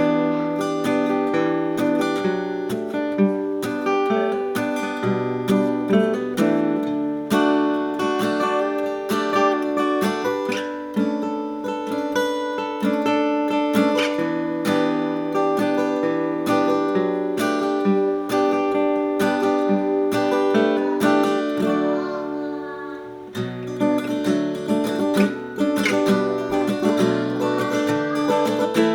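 A 1959 Gibson LG2 small-bodied flat-top acoustic guitar being played, with picked notes and strummed chords over a moving bass line. About two-thirds of the way through, the chords ring down briefly before the playing picks up again.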